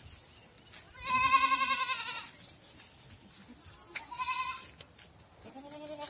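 Goats bleating, three times: a long, wavering bleat about a second in, a shorter one about four seconds in, and a lower-pitched one near the end.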